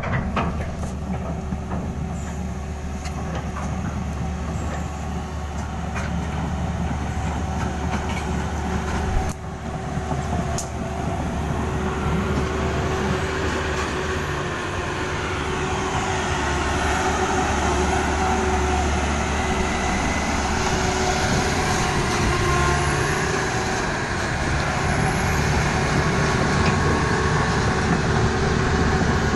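Komatsu 195-series hydraulic excavator running, a steady diesel drone with machine noise over it, briefly dipping about nine seconds in.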